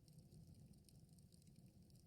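Faint campfire crackling: a steady low rumble of burning wood with many small, sharp pops and snaps.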